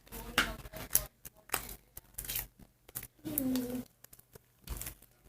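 Hands squeezing and pulling apart sticky glue slime, a run of short, irregular crackling and tearing sounds.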